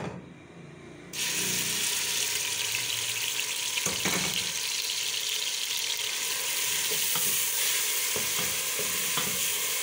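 Chopped onion frying in hot oil in a pot: the sizzling starts suddenly about a second in and goes on steadily as it is stirred with a wooden spoon, with a few light knocks of the spoon against the pot.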